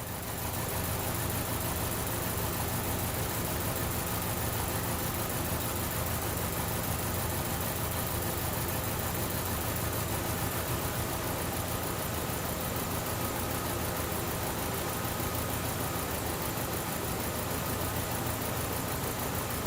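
2012 Chevrolet Cruze four-cylinder engine idling roughly and steadily, the engine shaking from a continuing misfire on cylinder 2.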